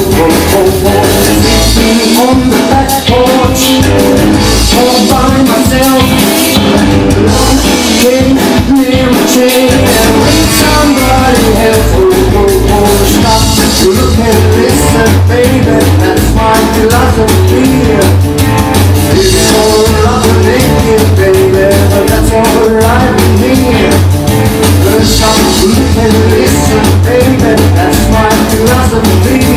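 Rock and roll music playing loud and continuous, with drums, a steady bass line and a wavering melodic lead.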